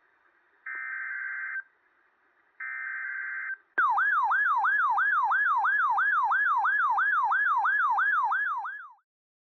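Electronic emergency alert tones: two buzzy data-like bursts about a second each, then an electronic siren tone sweeping up and down about three times a second for about five seconds before cutting off.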